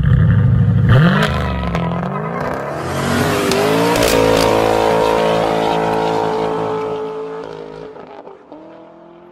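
A car engine revving up, then running at a steady high pitch and fading away near the end.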